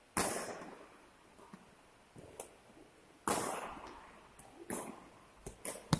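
Badminton rackets hitting a shuttlecock in a rally: two loud hits, one right at the start and another about three seconds in, each ringing out in the hall's echo, with a few lighter taps near the end.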